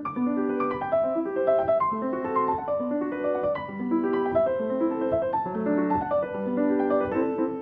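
Background piano music: a melody of single notes over lower sustained notes.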